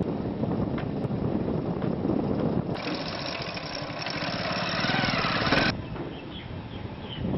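Motorcycle engine running close by with a fast, even pulsing rumble. A hiss rises over it for about three seconds in the middle and cuts off suddenly.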